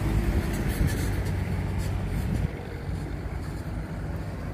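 Road traffic: a small truck's engine running as it drives away along the highway, a steady low rumble that drops in level about two and a half seconds in.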